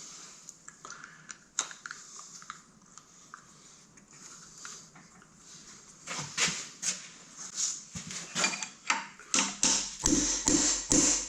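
Scattered light taps and clinks of tools and metal engine parts being handled, sparse and soft at first, then quicker and louder from about halfway through.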